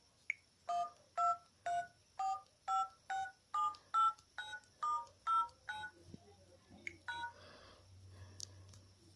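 Mobile phone keypad touch-tones (DTMF) as keys are pressed: about a dozen short beeps, each a two-note chord, at roughly two a second.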